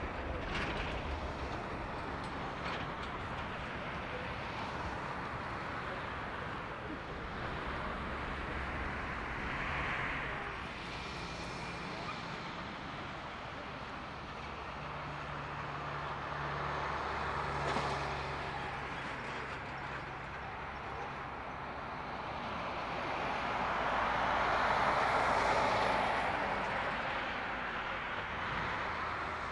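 Boeing 737-800's CFM56-7B jet engines running at idle as the airliner taxis onto the runway and holds in position: a steady jet rumble with a low hum. The jet noise swells louder for a few seconds about three-quarters of the way through.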